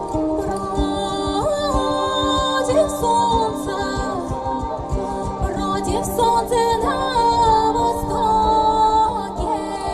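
Song performance: singing voices carrying the melody over a steady held low note, with musical accompaniment.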